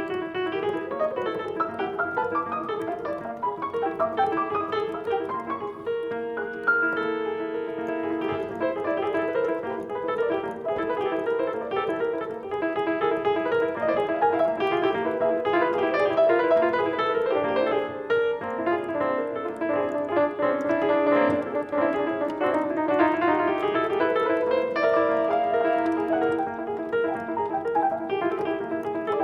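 Solo piano playing continuously, dense overlapping notes and sustained chords in a freely flowing improvisation, with a rising run of notes a little past the middle.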